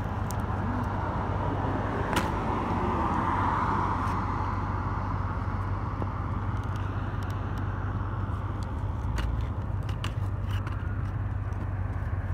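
A car passing on the road, its noise swelling about two seconds in and fading by about five seconds, over a steady low hum. Scattered small clicks from the RC truck's snapped front wheel being moved by hand.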